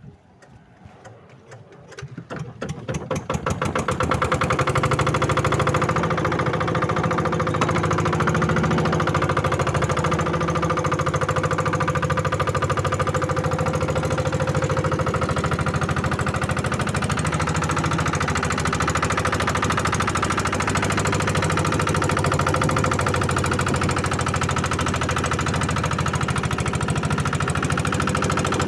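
A small fishing boat's engine starting up. Its firing beats speed up over the first few seconds, and it then runs steadily with a fast, even chugging.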